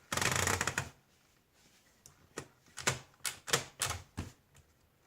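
1977 Olympia SF DeLuxe ultraportable typewriter being worked: a brief mechanical rattle at the start, then after a short pause a string of single key strikes at an uneven pace of about three a second.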